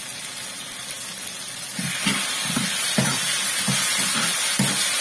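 Chopped tomatoes and onions sizzling in a frying pan. About two seconds in, a metal spoon starts stirring in the salt just added: the sizzle grows louder and the spoon knocks and scrapes against the pan in quick repeated taps.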